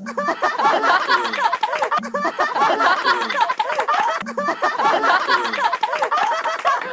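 A group of young men laughing loudly together, several voices overlapping, with some shouted exclamations among the laughs.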